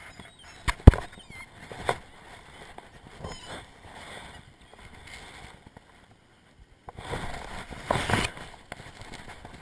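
Handling noise from a fly reel and line rubbing against a body-worn camera: a few sharp knocks in the first two seconds, softer rustling, then a longer scraping rub about seven to eight seconds in.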